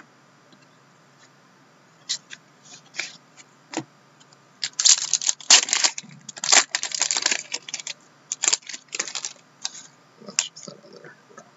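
Trading-card pack wrapper torn open and crumpled by hand, with the cards inside handled and slid out. It starts with scattered crackles about two seconds in and becomes a dense crinkling in the middle.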